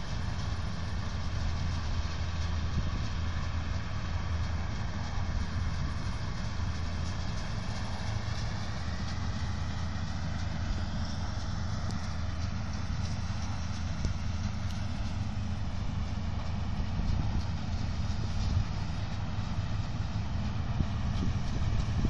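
Claas Senator combine harvester running as it cuts wheat at a distance: a steady low engine drone with the even hum of the threshing machinery over it.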